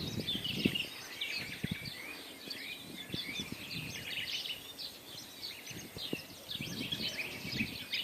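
Many small birds chirping and twittering together in a dense, continuous chorus, with occasional low knocks and thumps underneath.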